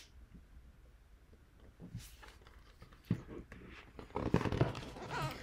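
Quiet room tone, then pages of a hardcover picture book being handled and turned, with paper rustling and soft bumps from about three seconds in.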